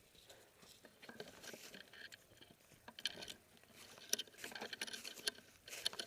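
Faint footsteps and rustling of kit, with scattered light clicks and scuffs, a little busier about three seconds in and again near the end.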